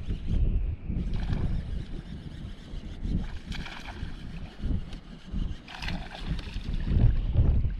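Wind buffeting the microphone, a gusting rumble, with two brief hissing sounds, about three and a half and six seconds in.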